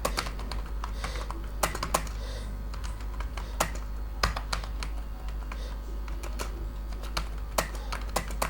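Typing on a computer keyboard during a timed typing test: irregular keystroke clicks, a few a second, some louder than others.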